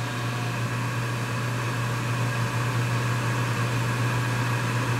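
Gas furnace's draft inducer motor running steadily with a low hum and an airy rush, during the ignition sequence before the burners light.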